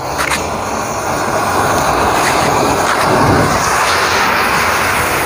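Bundles of matchstick heads set alight by a jet-flame lighter and flaring up together: a rushing fire noise that builds over the first two seconds or so and then holds steady.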